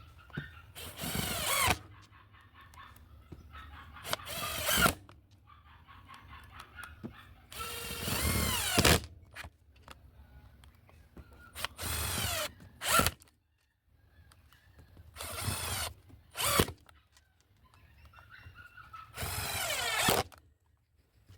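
Bosch GDR 120-Li 12 V cordless impact driver driving 3/4-inch screws at speed setting 2 with a new PH2 Phillips bit, in about six short bursts a few seconds apart, the motor pitch rising and falling with each.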